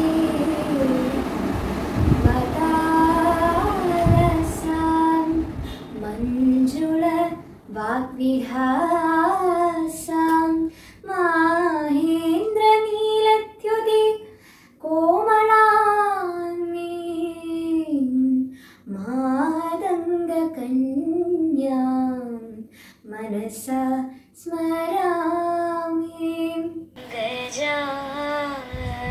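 A girl singing solo without accompaniment, holding long notes that slide and waver between phrases. About two seconds before the end, a second girl's singing voice takes over.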